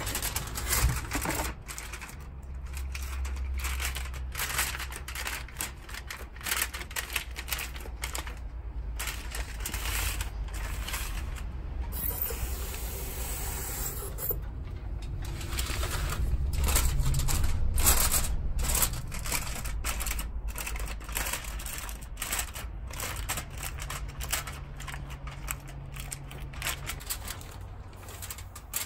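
Aluminium foil crinkling and crackling in irregular clicks as it is folded and crimped around fish by hand. About twelve seconds in, a kitchen tap runs briefly as a smooth hiss, under a low hum.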